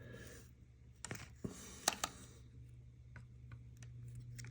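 Weller soldering gun humming steadily while solder is worked around a steel dial pulley and its brass bushing, with scattered light clicks and ticks, the sharpest about one and two seconds in.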